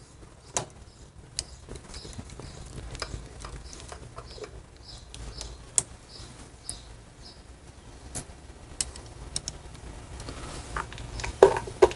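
Scattered light clicks and ticks of a hand tool on a long extension as screws are run into the cam cover of a Harley-Davidson Evolution engine, with a run of small regular ticks about twice a second through the middle.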